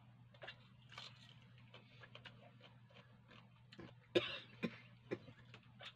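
A man eating close to the microphone, with small mouth clicks as he chews. About four seconds in comes a short cough, the loudest sound, followed by two smaller ones.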